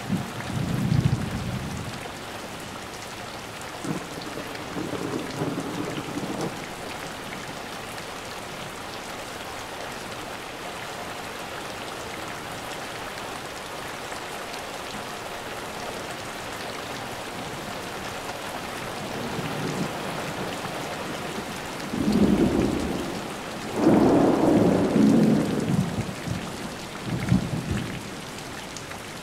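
Thunderstorm: steady rain falling throughout, with rumbles of thunder: one near the start, a softer one a few seconds later, and the loudest, longest peals about three quarters of the way through.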